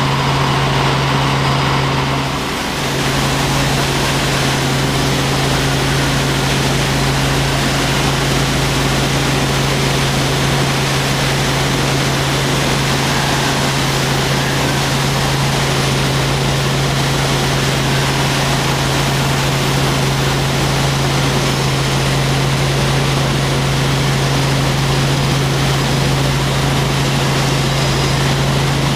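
Helicopter in flight: a steady, loud engine and rotor drone with a strong constant low hum, dipping briefly about two and a half seconds in.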